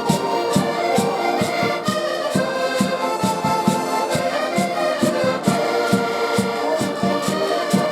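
Live band music: a sustained melody over a steady drum beat.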